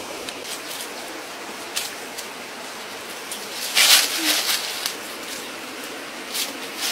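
Footsteps crunching through dry leaf litter, with short crisp rustles and a loudest crunch about four seconds in, over a steady hiss.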